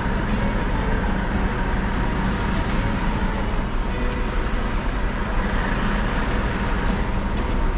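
Scania G410 truck's diesel engine running steadily, a dense, even low rumble with no change in level.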